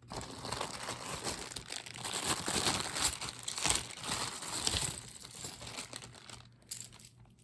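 Plastic jewelry bag crinkling as it is handled and opened: a dense run of rustles and small crackles that starts suddenly and dies away over the last couple of seconds.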